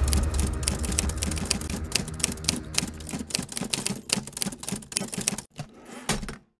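Typewriter keys clacking in a rapid, uneven run, a typing sound effect for text being typed out on screen. Music fades out beneath it over the first couple of seconds, and the clicks stop shortly before the end.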